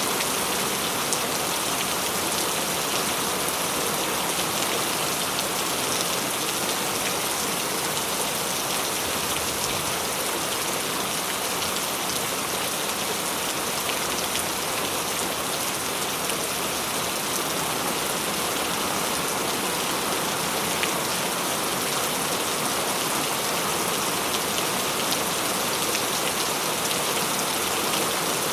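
Steady rain falling on a surface, an even hiss dotted with fine drop ticks.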